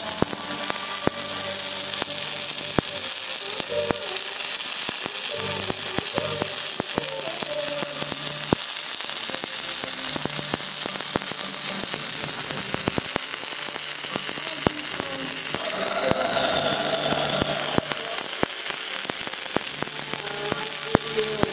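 Stick (SMAW) welding arc on steel pipe: a steady crackling hiss with many sharp pops.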